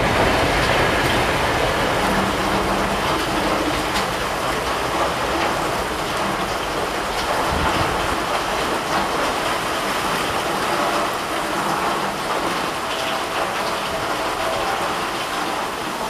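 Steady rain falling into puddles and onto wet ground.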